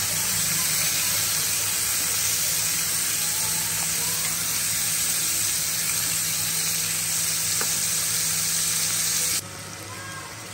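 Chicken tikka kebabs sizzling in an oiled grill pan as oil is brushed over them: a steady frying hiss that drops off suddenly near the end.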